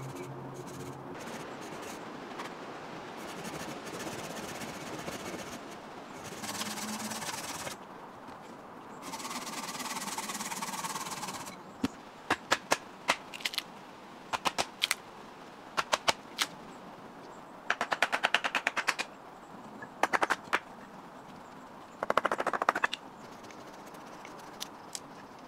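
Sped-up timelapse sound of hatchet work on wood at a stump. The first half holds a rasping noise in two longer stretches as a stick is worked. Then, from about halfway, come sharp knocks of the hatchet on wood, some single and some in dense clattering runs.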